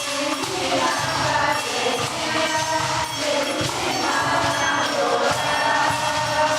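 A group of voices singing a song together, accompanied by percussion played on homemade sound objects.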